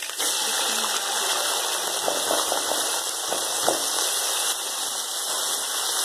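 Sliced onions hitting hot oil in an aluminium karahi and frying with a sudden, steady sizzle that starts just after the beginning. A few light knocks of the wooden spoon come about two to four seconds in as the onions are stirred.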